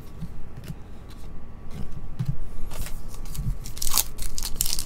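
Foil wrapper of a 2023 Panini Legacy football card pack crinkling and crackling in the fingers as it is gripped to be torn open, after a few soft clicks of cards being handled. The crinkling starts about three seconds in and is loudest near the end.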